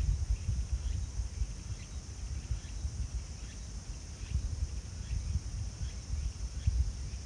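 Strong wind buffeting the microphone outdoors: an uneven low rumble that gusts louder near the start and again near the end, over a steady faint high hiss.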